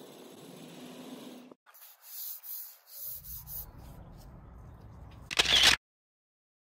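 Maroon Scotch-Brite 7447 abrasive pad scrubbing a brushed titanium bike tube in several quick hissing strokes, rubbing out scratches along the grain. Near the end a short loud rush, then the sound cuts off to silence.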